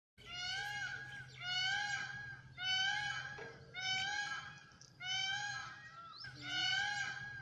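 Indian peafowl honking: a regular series of six nasal calls, each about a second long, one roughly every 1.2 seconds, over a steady low hum.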